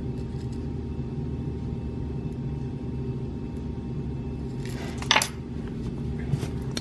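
Metal tweezers and a small metal tin of sugar pearls being handled: faint light clinks, then a short clinking rattle about five seconds in and a couple of small clicks near the end, over a steady low hum.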